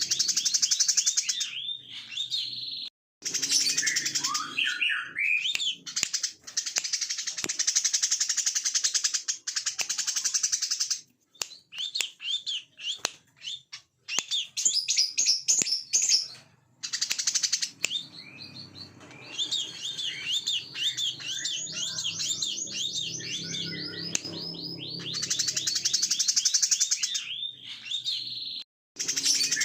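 Brown-throated sunbird (kolibri kelapa) singing in fast, buzzy, rapid-fire trills and chattering phrases, the 'ngebren' song style. The song runs in long bursts broken by several abrupt short silences.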